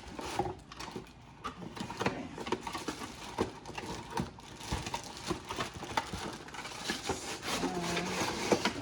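Handling noise from unpacking an electric coffee grinder and its accessories: irregular clicks, taps and rustling of plastic and packaging.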